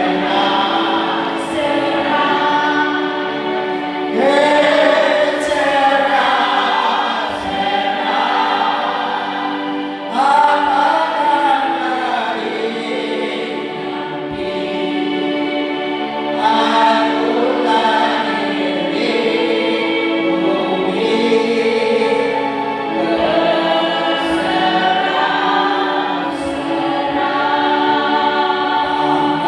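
A choir singing, with long held tones under the voices.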